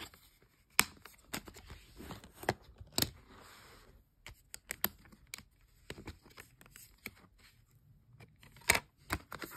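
Clicks and scrapes of plastic discs being handled in a Blu-ray case, as the disc hubs are pressed to free the discs. Several sharp clicks are scattered through, the loudest about a second in, about three seconds in and near the end.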